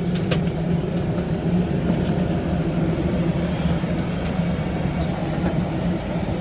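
Airport shuttle bus engine running with a steady low drone, heard from inside the crowded passenger cabin.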